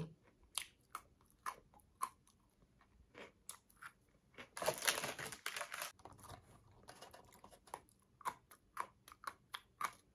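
A person chewing a crunchy snack close to the microphone, with many small crackles and clicks and a louder noisy stretch about halfway through. Plastic wrapper crinkling as a candy bar wrapper is torn open.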